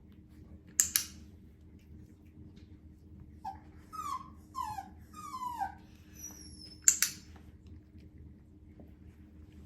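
Havanese puppy whining in frustration: three short whines, each falling in pitch, with a faint high squeak after them. Two sharp double clicks sound, about a second in and again near seven seconds; these are the loudest sounds.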